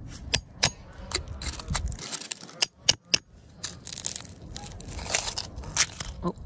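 Metal digging tool scraping and prying through gritty, crumbly soil: a run of sharp irregular clicks and scratchy scrapes as grains and clumps break loose.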